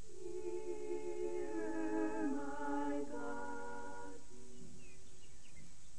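Unaccompanied voices singing slow, held chords. The harmony changes about three seconds in, and the singing fades out after about four seconds.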